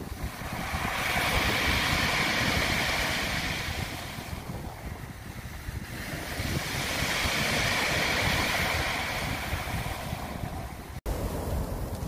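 Sea waves breaking and washing up a pebble beach, the surf hiss swelling and fading twice.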